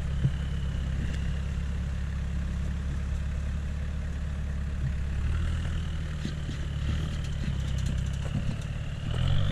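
Lifted Toyota Hilux pickup's engine running steadily at low revs as the truck crawls slowly over a snowy mound. A faint high whine rises and falls over the last few seconds.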